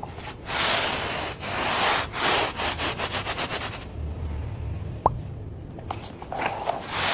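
Brisk rubbing strokes of a hand-held pet hair remover worked back and forth. It begins with a few longer strokes, then speeds up to short quick strokes, about six a second, which stop about four seconds in. A sharp click comes about a second later, and the rubbing picks up again near the end.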